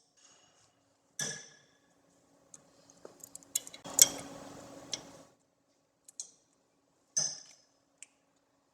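Metal tool clinks and knocks on the high-pressure cylinder cap screws of a Jet Edge iP60-50 intensifier pump as they are loosened with a wrench. There is a ringing clink about a second in, then a run of small clicks, then a louder clank just after the middle followed by about a second of rattling, and a few more clinks near the end.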